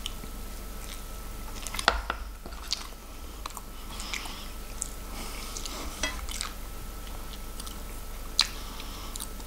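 Close-miked chewing of a mouthful of corned beef hash, with scattered short wet mouth clicks and the taps of a wooden spoon on a plate; the sharpest clicks come about two seconds in and near the end.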